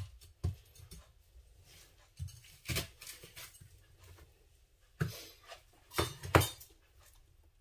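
Eating at close range: a scattered run of sharp clicks and knocks from cutlery and dishes, the two loudest close together near the end.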